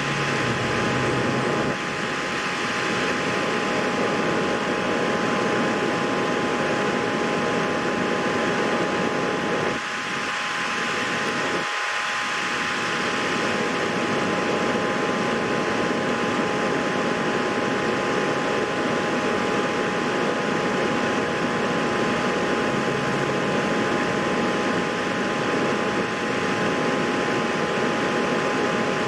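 Steady whirring machine noise, like a fan, with a constant two-note hum.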